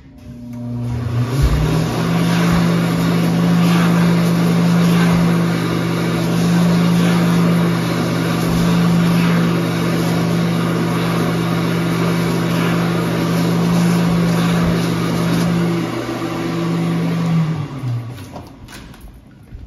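Bradley-branded Mediclinics Speedflow hand dryer triggered by a hand beneath it. Its motor spins up with a rising tone in the first second or two, then runs with a steady hum and a loud rush of air. Near the end it cuts off and winds down with a falling tone.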